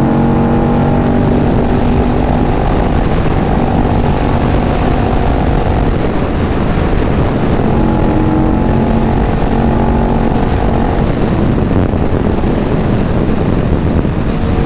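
Sport motorcycle engine running at riding speed under heavy wind rush, its note holding steady for a second or two at a time and then shifting in pitch.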